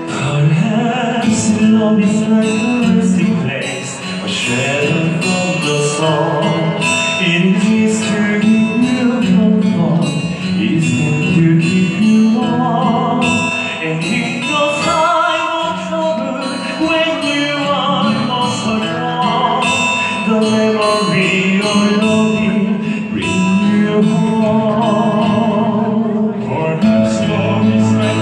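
Two male pop-opera singers singing a duet through a handheld microphone, with vibrato on held notes, over an instrumental accompaniment with guitar. The men take turns on the microphone.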